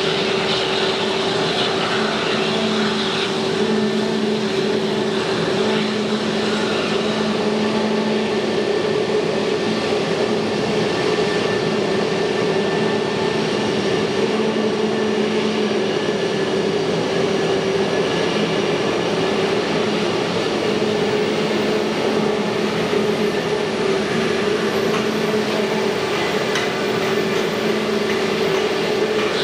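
Airbus A321neo's turbofan engines running steadily after start-up: an even jet whine with several held tones over a broad rushing hiss.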